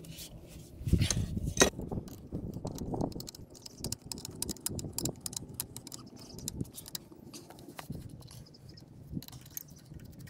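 Metal clinks, knocks and scraping from hands working a separator's dump valve and its float linkage. The sharpest knocks come in the first two seconds, then a run of light ticks and clicks.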